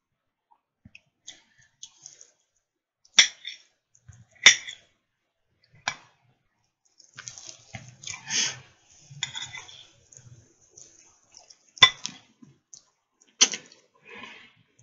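A person eating close to the microphone: several sharp clicks and smacks spread through, and a longer noisy stretch of chewing in the middle.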